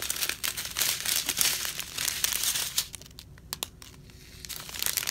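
Small clear plastic zip-lock bags of diamond-painting drills crinkling as they are handled and shuffled. The rustle drops away a little past halfway, then starts again near the end.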